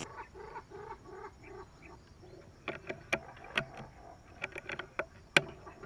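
A run of short, evenly spaced animal calls, about four a second, for the first two seconds, then scattered sharp clicks and knocks, the loudest one near the end.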